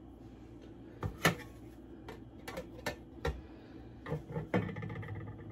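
Pie pan knocking and clicking against a wooden cutting board as it is turned and pressed while pie dough is worked into it: about a dozen short, irregular taps, the loudest about a second in.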